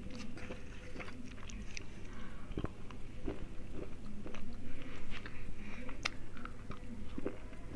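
Slate pencil being chewed close to the mouth: a run of small dry crunches and clicks, with a sharper crack about six seconds in.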